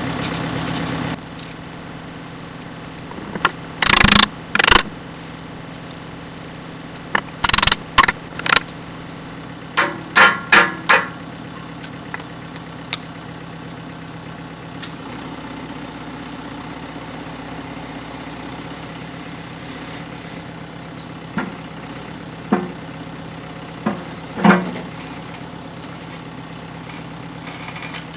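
Backhoe diesel engine idling steadily, with several short clusters of loud knocks and scrapes from work on the machine.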